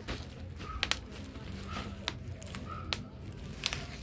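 Handling of a fabric suitcase's interior straps: quiet rustling with a few sharp plastic clicks from the strap buckles, two close together about a second in and more near the end.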